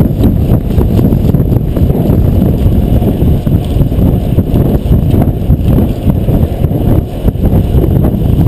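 Wind buffeting a GoPro's microphone on a fixed-gear bicycle at race speed: a loud, low, uneven rumble that keeps rising and falling.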